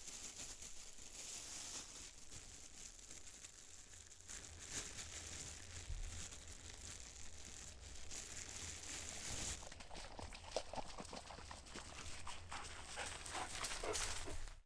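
A dog coming up close through frost-covered mire vegetation: rustling steps and panting, a little louder near the end as it reaches the microphone.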